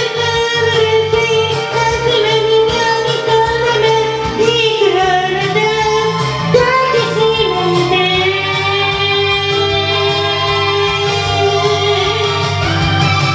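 A voice singing a pop song over a backing track, holding long notes with a few slides in pitch, over a steady bass line.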